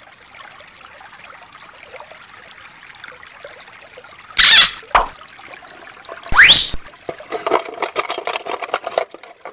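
Faint trickle of shallow water over rocks, then a short loud noisy burst about four and a half seconds in and a quick rising whistle-like sweep about six seconds in. After that comes a rapid clatter of plastic toy figures rummaged in a plastic storage case.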